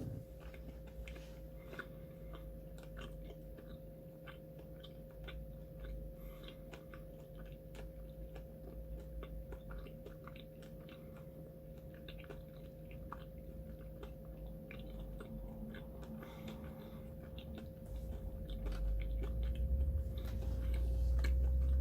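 A person chewing and biting into a chocolate-dipped banana candy, with many small crunches and mouth clicks over a faint steady hum. A low rumble builds over the last few seconds.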